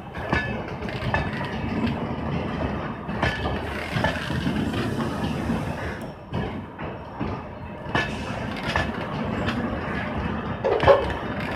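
Blue LHB passenger coaches rolling past at departure pace, their wheels clicking and knocking over the rail joints with a steady rumble underneath. The loudest knock comes just before the end.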